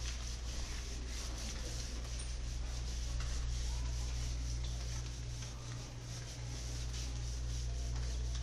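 A steady low hum with faint rubbing and scratching over it, like a pen moving on paper.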